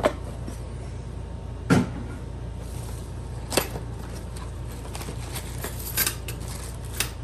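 Padlocks and their boxes being handled and set down on a counter: a handful of separate knocks and clunks a second or two apart, the loudest about two seconds in.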